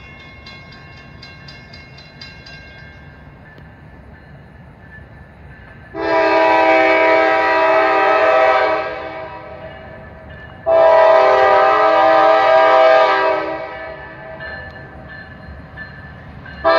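Diesel locomotive air horn on the lead GE Dash 9-44CW sounding two long blasts of about three seconds each, with a third starting just at the end: the opening of the long-long-short-long grade-crossing signal. Beneath it a low steady rumble of the approaching train, and a faint rapid ringing in the first few seconds.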